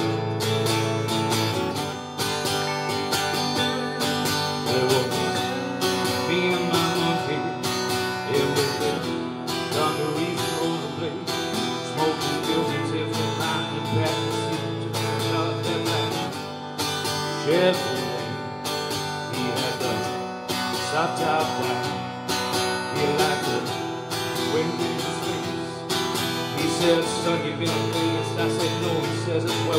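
An acoustic guitar strumming chords together with an electric guitar playing lead lines with some bent notes, continuous live playing.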